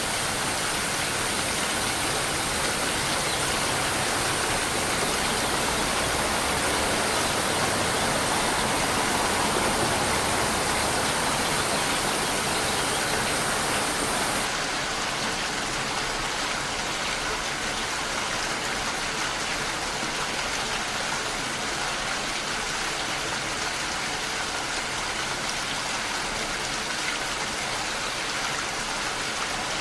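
Steady heavy rain, an even wash of hiss. About halfway through the sound changes abruptly to a slightly softer, less hissy rain, as at a join between two recordings.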